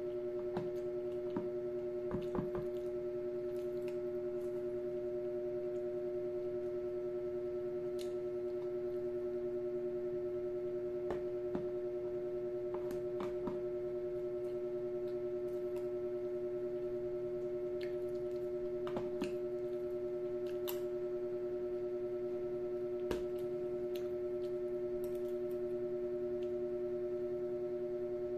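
Metal spoon clicking and scraping against plastic food containers every few seconds, over a constant steady hum.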